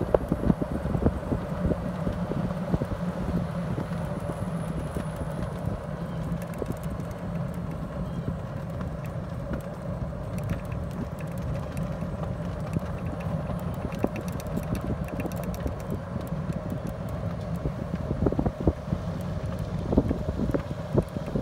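Golf cart driving along a paved street: a steady low running hum, with irregular rattles and knocks from the cart.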